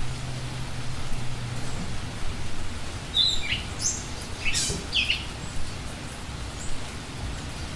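Steady rushing noise of open air, with a few short, high bird chirps between about three and five seconds in.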